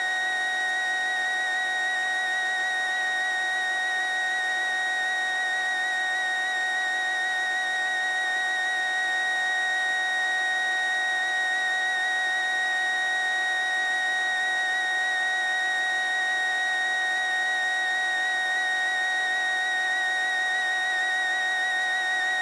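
A steady, high-pitched whistle-like tone, unchanging in pitch and level.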